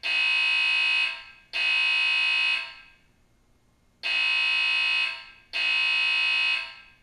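Simplex 4100U voice-evacuation fire alarm system sounding its electronic alarm tone through a speaker. The tone is a loud, steady, high beep of about a second, given in groups of three with a pause of about a second and a half between groups.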